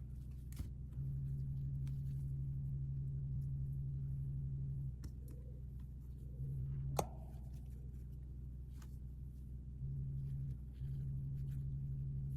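Sparse light clicks and taps from unboxing and handling small plastic toy pieces, with one sharper click about seven seconds in, over a low hum that cuts in and out several times.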